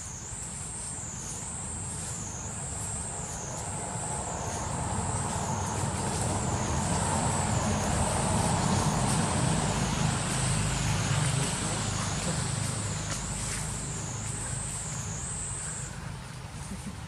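A motor vehicle passing by: a broad rumble that builds to its loudest about halfway through and then fades away. Over it runs a high, wavering insect drone that pulses about once a second and stops near the end.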